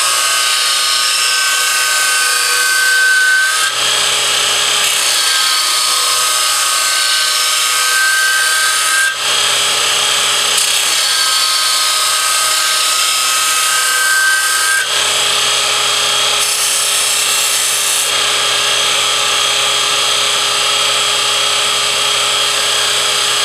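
Burr King X400 belt grinder's abrasive belt grinding a steel lawnmower blade, sharpening it in long passes of about five seconds each. There is a high whine over the grinding noise in the first three passes.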